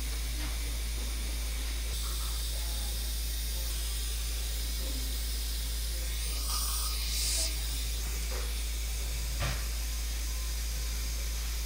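Steady low hum under an even hiss. A brief louder hiss comes about six seconds in, and a single sharp click about nine and a half seconds in.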